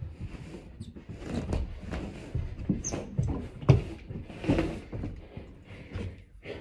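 Irregular thumps, knocks and shuffling on a staircase as movers handle a load, with the sharpest knock about four seconds in.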